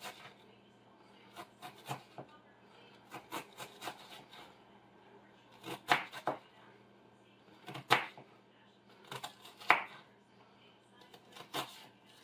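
Kitchen knife dicing an onion: irregular clusters of short, sharp knocks as the blade strikes through to the board, with a few louder strikes about six, eight and ten seconds in.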